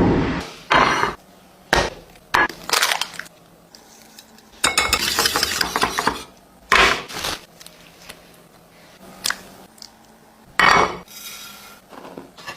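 Kitchen utensils clattering against dishes and pans in a series of separate knocks and clinks, with a longer scraping stretch about five seconds in.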